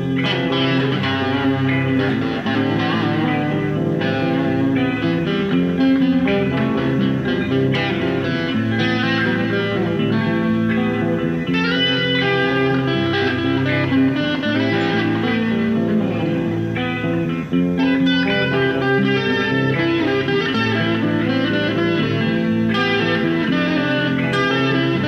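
Electric guitar played without a break, a steady stream of plucked notes over low notes ringing underneath.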